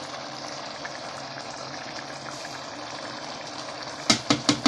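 Steady sizzling hiss of chicken cooking in a hot stainless-steel pot, with about four quick sharp knocks close together near the end.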